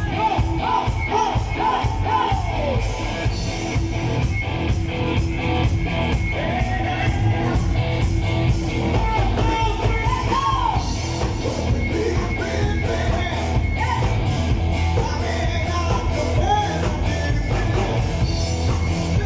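A band playing a song: a steady, driving beat with a singing voice over it.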